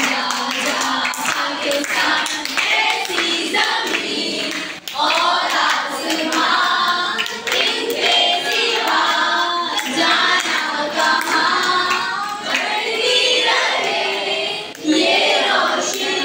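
Girls singing, one into a microphone, with a group of schoolchildren clapping along.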